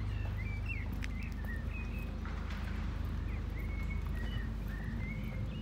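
A bird singing in short high chirps and warbles over a steady low rumble, with a few light taps of footsteps.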